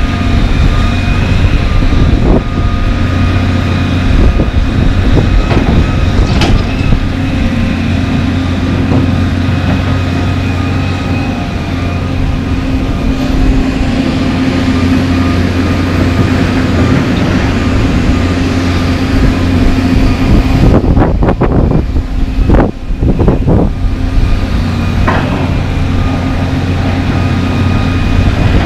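John Deere 350D LC excavator's diesel engine running steadily under load with a steady whine, while its bucket digs and swings asphalt. Scattered knocks and clunks of the bucket and broken asphalt slabs come through, with a quick run of them about three-quarters of the way through.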